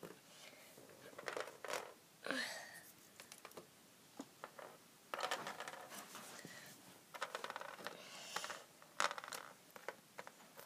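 Faint, scattered plastic clicks and short scrapes as Lego minifigures are pushed and knocked about on a Lego baseplate.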